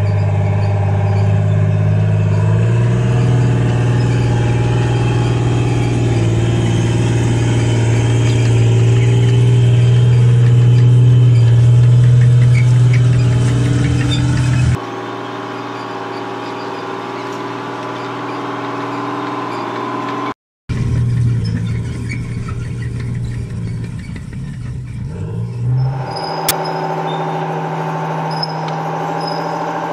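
Diesel engine of an M113-family TLAV tracked carrier running under load as it tows another tracked vehicle, a steady low drone that steps up slightly in pitch a few seconds in. It drops abruptly to a quieter, lower sound about halfway through and shifts pitch again near the end.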